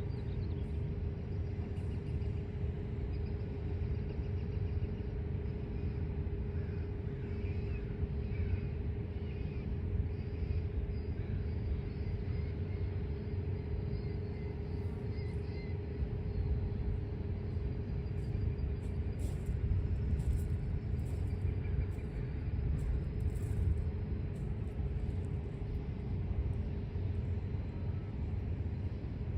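Steady low rumble with a constant hum: a slow local freight train hauled by EMD GP15-1 diesel locomotives.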